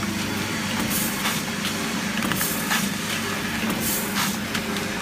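Vertical granule packing machine running: a steady low hum with repeated short hisses at an uneven pace.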